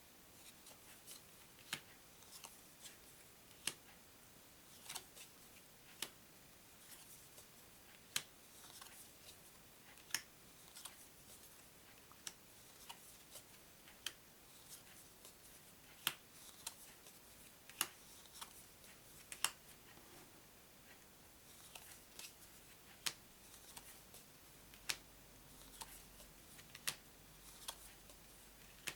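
New Mattel DOS playing cards being laid down or flicked over one at a time, a light sharp snap about every second or two against quiet room tone.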